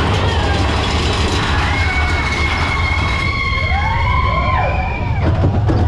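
Big Thunder Mountain Railroad mine-train roller coaster running along its track with a heavy, steady rumble. A long high whine sets in about two seconds in, and riders' rising-and-falling cries come in near the end.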